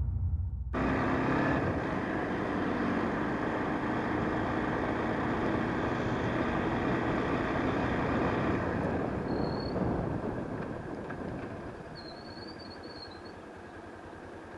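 Bajaj Pulsar 150's single-cylinder engine running under way with wind rush, heard from the rider's seat. The sound drops off about nine seconds in and stays quieter as the bike slows down.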